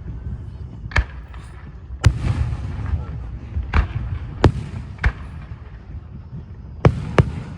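Fireworks display: about seven sharp bangs at uneven intervals, a second or so apart, two of them close together near the end, over a continuous low rumble.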